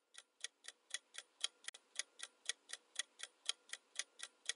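Clock-style ticking sound effect of a quiz countdown timer, even ticks about four times a second.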